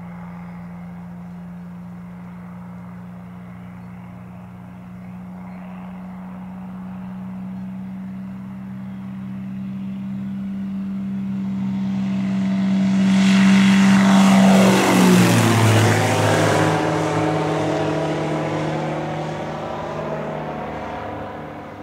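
Light single-engine propeller airplane making a low pass. The engine drone grows steadily louder as it approaches, drops sharply in pitch as it goes past about fifteen seconds in, then fades as it moves away.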